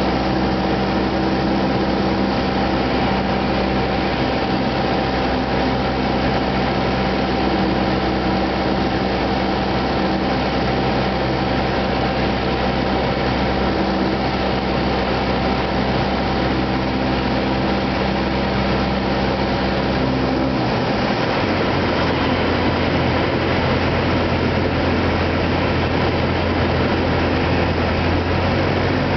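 Single-engine Cessna's piston engine and propeller running steadily, heard from inside the cabin. The engine note changes abruptly about three quarters of the way through.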